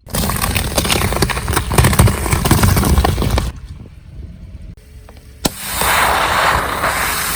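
Car tyre rolling over and crushing objects: dense crunching and cracking over a low rumble for about three and a half seconds. A sharp snap comes about five and a half seconds in, followed by a steady hiss.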